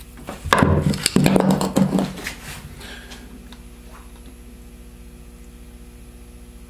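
Metal clattering and scraping as the governor cover is worked off a Turbo 400 transmission's aluminum case, lasting about a second and a half, then only a faint steady hum.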